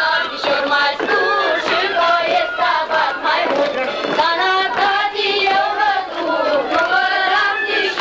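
A group of children singing a folk song together.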